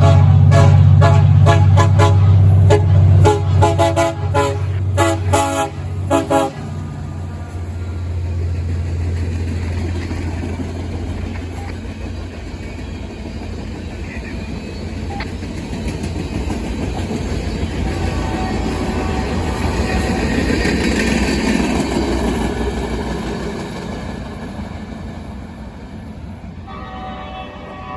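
LRB50-21 air horn blowing a rapid string of short, chord-like toots for about the first six seconds, over a loud low engine rumble. The rumble goes on alone, swelling and then fading through the middle, and the horn sounds again near the end.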